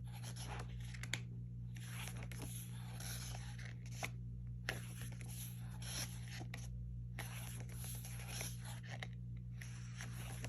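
Glossy photobook pages being handled and turned: paper rustling and sliding in about five spells with short pauses between them, a few sharp clicks among them, over a steady low hum.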